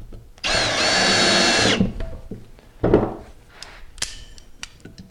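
Cordless drill/driver running for about a second and a half as it drives a screw into a pine 2x4, its pitch dipping briefly soon after it starts and then holding steady until it stops. About a second later comes a single knock, followed by a few faint metallic clicks as locking pliers are clamped onto the screw.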